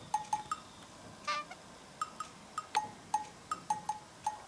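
Background music: a light percussion tune of short struck notes on two alternating pitches, in an uneven bouncing rhythm, with one brief buzzy note about a second in.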